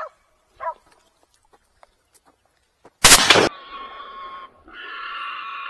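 A single shot from a scoped hunting rifle about three seconds in, followed by two long, high squeals from the wild boar it hit.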